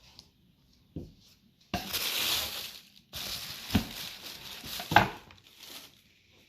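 Paper rustling and crinkling in two long stretches, with a few short knocks, as packing paper and the box are handled.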